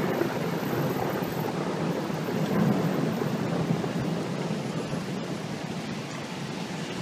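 Thunder rumbling over steady rain, swelling about two and a half seconds in and slowly easing off.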